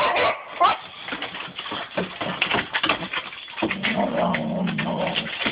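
A boxer and a bulldog play-fighting, growling and whining, with claws and paws scrabbling and knocking on wooden deck boards. A longer, steadier growl comes a little past halfway.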